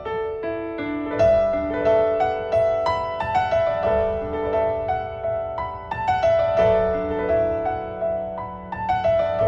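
Background solo piano music: a melody of struck notes that ring and fade over lower held notes.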